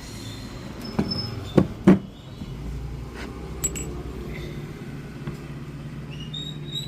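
Metal clinks and knocks from scooter clutch and pulley parts and tools being handled, with three sharp knocks between about one and two seconds in and lighter clicks later. A steady low hum runs underneath.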